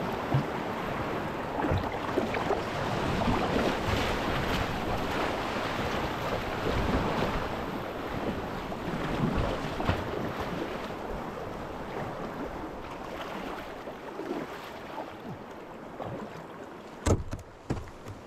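Turbulent tidal whitewater rushing and splashing around a kayak, with paddle splashes in it. A few sharp knocks come near the end.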